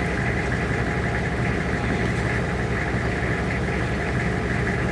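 A tow truck's engine idling steadily, a low even hum with no change in speed.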